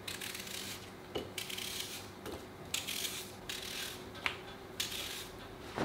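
Small knife slicing through a crisp unpeeled apple held in the hand, short scraping cuts, with a few light clicks as slices and knife touch a ceramic plate.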